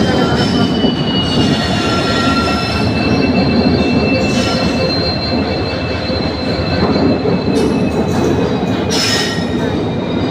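Train passing with a steady, high-pitched wheel squeal over a dense rumble of wheels and rails, the squeal drifting slowly lower. There is a brief hiss about nine seconds in.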